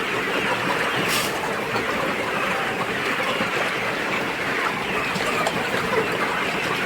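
A large flock of young chickens in a poultry house, a dense steady chatter of many overlapping clucks and cheeps.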